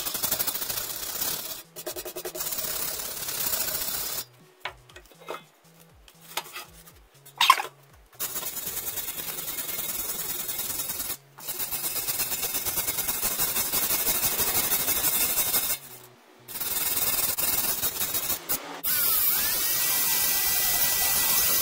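Quick rubbing and scraping strokes of a hand tool working rust off a steel exhaust, in runs broken by short pauses. About 19 seconds in, an angle grinder spins up with a rising whine and then runs at a steady high pitch.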